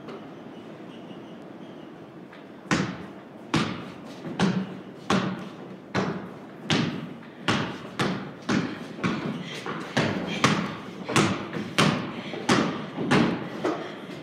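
Basketball dribbled on a wooden plank floor: a steady run of thuds, about three bounces every two seconds, starting about three seconds in, each trailing an echo in the large hollow room.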